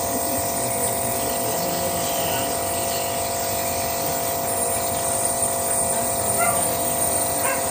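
A steady machine hum with several fixed tones and no change in level, like a small electric motor running.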